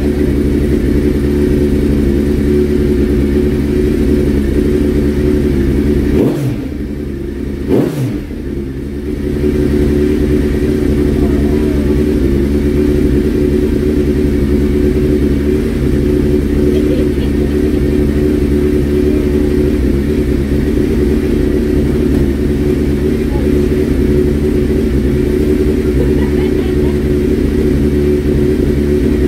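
Suzuki Hayabusa inline-four engine idling steadily while it warms up, newly running after two years off the road. The note dips briefly about six seconds in and picks back up a few seconds later.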